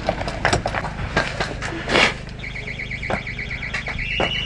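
A few sharp clicks, then an electronic alarm starts about halfway in: a high, rapidly pulsing tone that steps up a little in pitch near the end.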